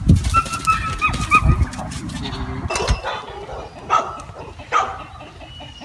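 Goats bleating: a quick run of short, high calls in the first second and a half, then two louder calls around four and five seconds in, over a low rumbling noise.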